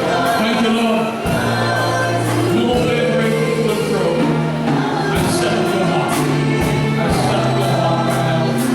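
Gospel worship music: a church band with held bass notes and a steady drum beat, and voices singing.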